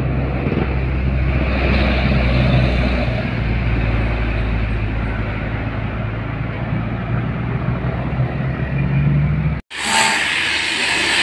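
A bus engine running steadily close by, a low hum with road and traffic noise. Near the end the sound cuts off abruptly and a brighter, hissier vehicle noise follows.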